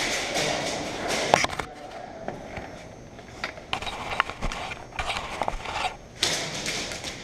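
Clothing and gear rustling and scraping as a player moves, with scattered sharp clicks and snaps.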